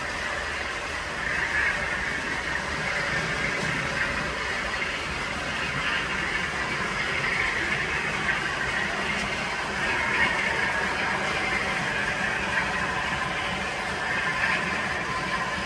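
Model trains running on a model railway layout: a steady running noise of small locomotive motors and wheels on the rails, with a few light clicks along the way.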